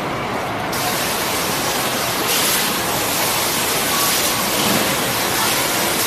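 Water from a digital water-curtain display falling into its catch tray: a steady splashing hiss that turns brighter and fuller under a second in, as water lands in the tray again.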